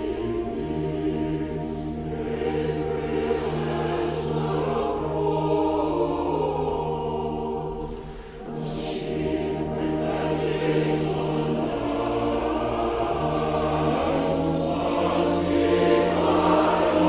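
Background music: a choir singing slow, sustained chords, with a short break between phrases about eight seconds in.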